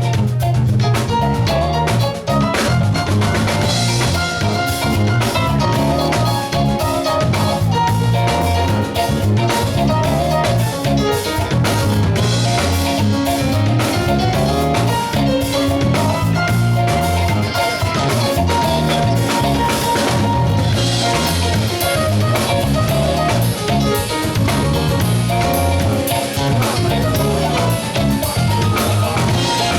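Live band playing an instrumental groove, with the drum kit prominent over bass and other pitched instruments.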